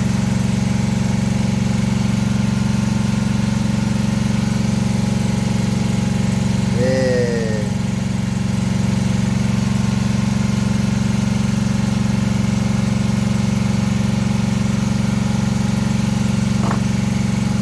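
Boat's inboard engine idling steadily with an even low hum. A brief falling tone comes about seven seconds in, and a faint click near the end.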